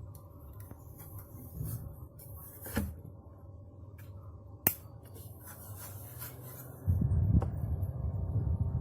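Small plastic battery mini clip fan being handled, with rubbing and a few sharp clicks. About seven seconds in the fan starts running, and its airflow makes a steady low rumble on the microphone.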